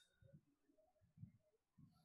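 Near silence: faint room tone with a few soft low thumps.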